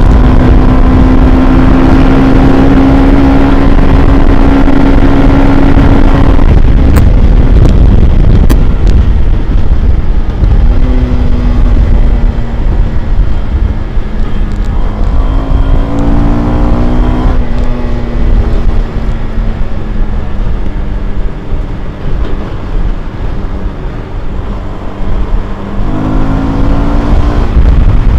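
Yamaha FZ-16 (Byson) single-cylinder carburetted engine through its stock exhaust, running at high revs with the pitch held steady for about six seconds, then dropping off. The revs climb again twice, about halfway through and near the end.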